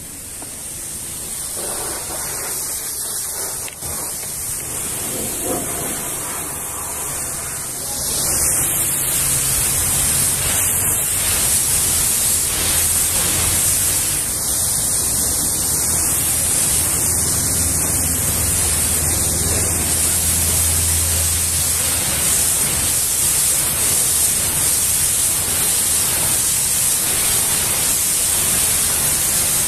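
Pressure-washer lance blasting a high-pressure water jet against the flat side panel of a refrigerated trailer, a steady hiss that grows louder about eight seconds in.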